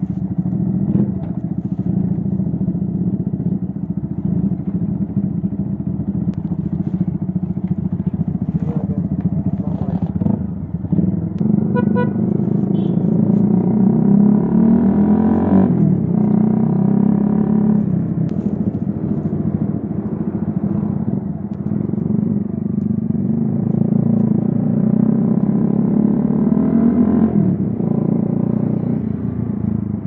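Keeway Cafe Racer 152's single-cylinder engine running through an Akrapovic full exhaust system with its dB killer fitted, pulling away and riding: the revs climb and drop sharply with gear changes about fifteen seconds in and again near the end.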